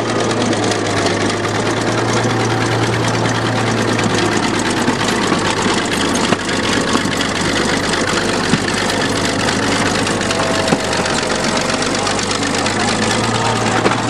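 Bulldozer's diesel engine running steadily with a low hum, with a few brief sharp knocks over it.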